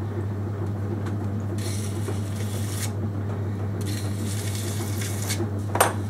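Electric potter's wheel running with a steady low hum while fingers smooth the surface of a clay pot, making two stretches of soft rubbing hiss. A single sharp click comes near the end.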